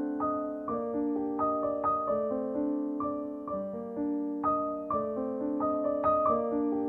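Soft background piano music: a gentle, slow run of single notes and chords.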